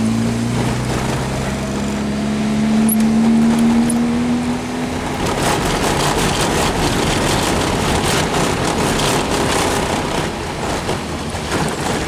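Car engine running, heard from inside the cabin while driving on a dirt road. Its note rises steadily over the first few seconds as it accelerates. From about five seconds in, tyre noise and short knocks from the rough unpaved surface take over.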